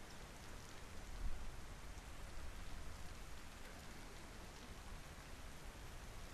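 Steady rain falling, an even hiss with scattered drops, and a brief low thump a little over a second in.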